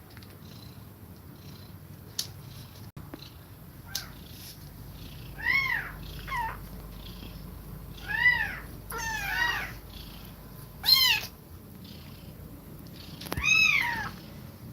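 Nursing kittens mewing: about seven short, high-pitched mews that rise and fall, in a cluster from about halfway in and again near the end. Beneath them a low steady purr, and a faint quick rhythm of the mother cat's fast breathing in the quieter stretches.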